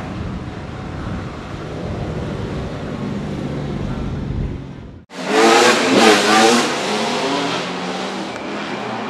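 Ferrari 250 GTO's 3-litre Colombo V12 running at low revs as the car rolls slowly. About five seconds in, the sound cuts to much louder engines revving up and down, a Ferrari 250 GTO/64 V12 with a Ford Mustang race car close behind, then settling to a steadier drone.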